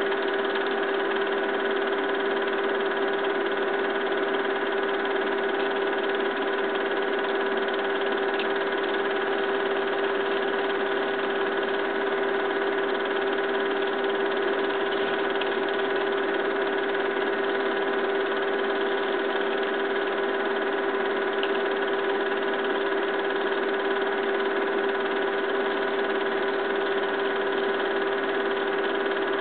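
Steady whir of a film projector running: a constant hum with a noisy rattle that does not change.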